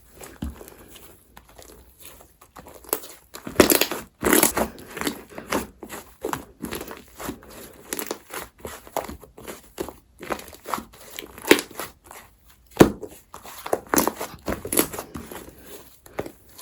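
Slime being squeezed and pressed by hand: irregular crinkly, crackling clicks with louder bursts about four seconds in and again near the end.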